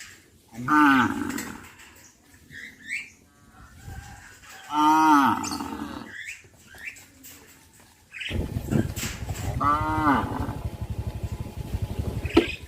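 Cows mooing: three loud moos, each sliding up and then down in pitch, with fainter short calls between them. A low, steady rumbling noise starts about eight seconds in and runs under the last moo.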